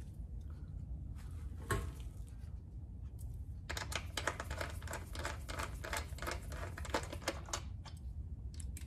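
Hand ratchet clicking in rapid runs as the bolts holding an aluminum engine plate are tightened, after a single sharp click about two seconds in. The ratcheting starts about four seconds in and stops shortly before the end.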